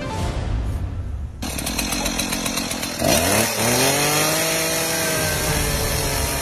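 Stihl two-stroke chainsaw revving up sharply about halfway through, then running at high speed with its bar over wooden planks.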